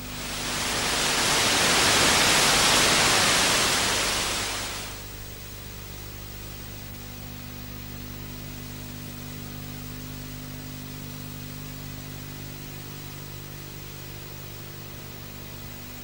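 A loud burst of static hiss swells in, peaks and fades out about five seconds in, over a steady low electrical hum that continues throughout.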